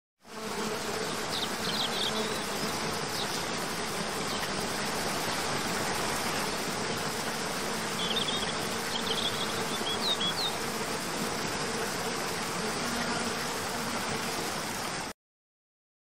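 Steady rush of falling water with a buzzing insect hum beneath it, and a few short high bird chirps about a second in and again around eight to ten seconds in. The sound starts abruptly and cuts off suddenly near the end.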